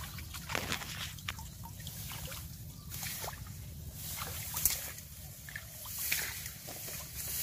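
Shallow muddy water sloshing and trickling in small irregular splashes as someone wades through it.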